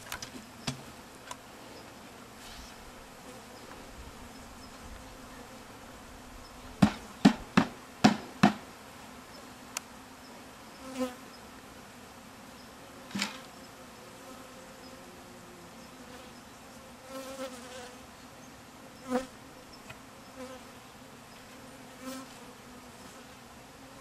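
A mass of honey bees buzzing steadily, just dumped from a bee vacuum into an open hive box. About seven seconds in, a quick run of about five sharp knocks is the loudest thing, with a few single knocks later.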